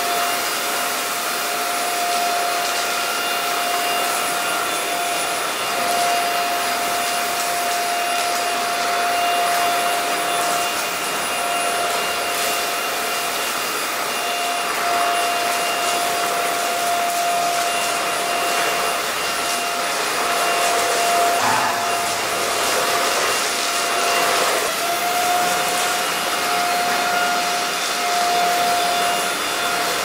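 Alfawise AR182BLDC cordless stick vacuum running with its brushless motor and motorized brush head: a steady high whine over rushing airflow as the head is pushed back and forth over a tile floor picking up debris.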